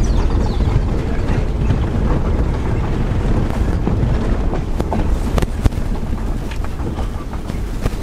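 Vehicle driving, heard from inside the cabin: a steady low rumble of engine and road with wind buffeting the microphone, and a few sharp knocks or rattles about five seconds in.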